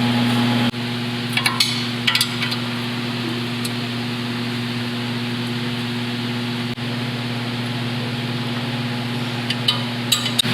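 Steady mechanical hum with a low, even drone, broken by a few light clicks about a second and a half in and again near the end.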